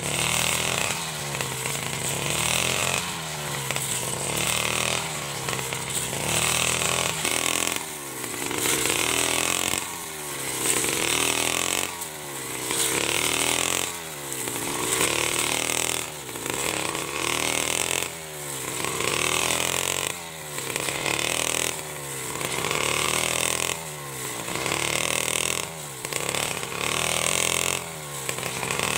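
49cc side-hung brush cutter engine running at high revs, its pitch and loudness dipping and recovering about every two seconds as the spinning blade is swung through rice stubble and grass.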